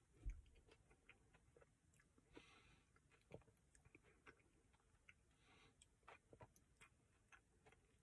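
Near silence with faint mouth sounds of chewing a mouthful of ice cream with the mouth closed: scattered soft clicks and smacks. There is a low thump just after the start.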